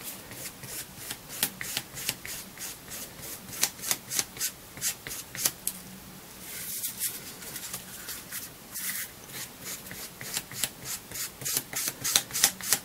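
Plastic spatula scraping back and forth over the fuzzy flesh side of chrome-tanned leather, spreading and working Tokonole into the fibres: a run of short, dry rubbing strokes, a few a second.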